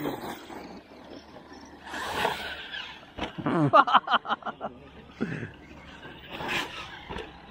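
1/8-scale RC monster trucks driving on a dirt track, motors revving and tyres on dirt, in uneven bursts that are loudest about two seconds in and again around four seconds in.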